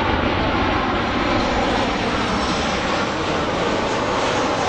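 Airplane engines close by, a loud, steady rushing roar with a deep rumble underneath.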